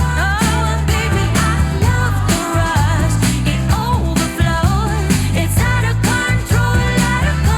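Pop song with a sung vocal melody over a heavy bass line and steady beat, played back through Audio-Technica ATH-M50xBT wireless headphones.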